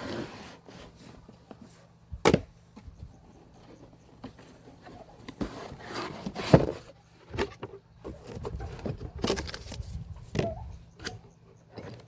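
Irregular sharp clicks and knocks from an airsoft Glock 18C replica being handled. The two loudest come about 2 seconds and 6.5 seconds in, with smaller clacks and rustling between.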